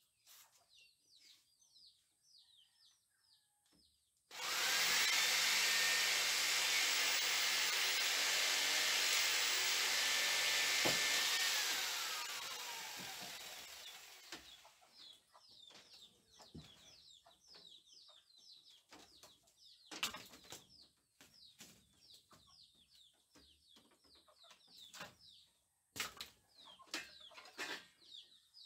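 Handheld electric drill running for about seven seconds: its whine rises as it spins up about four seconds in, holds steady, then winds down with a falling pitch. Repeated high bird chirps come before and after, and a few sharp knocks sound near the end.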